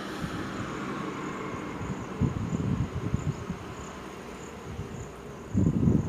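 Roadside traffic noise with insects chirping in a steady pulsing rhythm, and bouts of low rumbling about two seconds in and again near the end.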